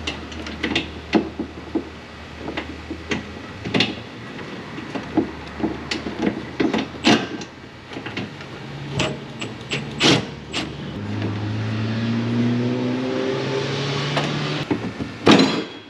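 Metal knocks and clicks from hand work on the fuel tank's mounting hardware under a truck, then a steady motor hum starting about nine seconds in, rising slightly in pitch and getting louder before it stops near the end.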